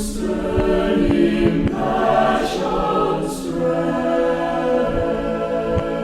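Background music of choir-like voices holding sustained chords, with a few faint clicks and two brief hissing swells about halfway through.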